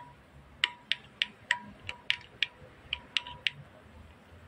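Wood fire crackling: about a dozen sharp, irregular pops, some with a faint brief ring.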